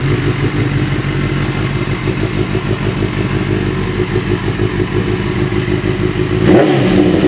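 Benelli TNT600's inline-four engine idling steadily through an Akrapovič half-system exhaust, with one short throttle blip near the end.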